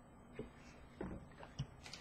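A few faint clicks and taps as trading cards are handled and set down.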